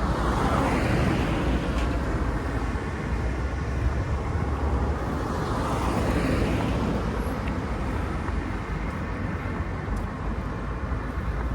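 Road traffic: vehicles passing, two swelling up and fading away about a second in and around six seconds in, over a steady low rumble.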